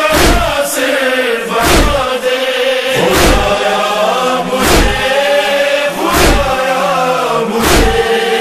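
Male chorus chanting a noha, a Shia lament, in long held notes. A deep thump keeps time about every second and a half.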